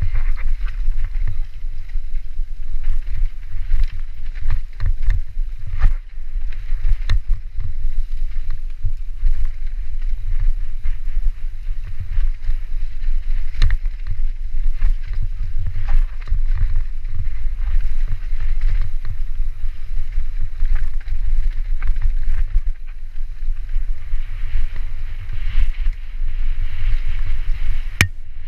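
Mountain bike descending a rough, rocky trail, with heavy wind rumble on the camera's microphone and frequent knocks and rattles as the tyres and bike hit rocks and bumps.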